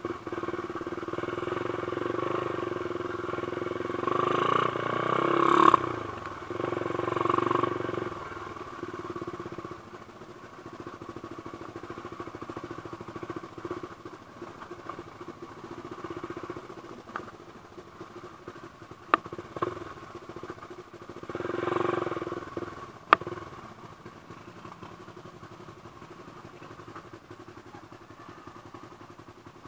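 Off-road trail motorcycle engine running while riding, swelling with throttle a few times. There are two sharp knocks near the end.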